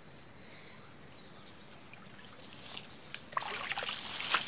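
A steady high insect drone, then from about two and a half seconds in a run of splashing and rustling at the water's edge that grows louder toward the end.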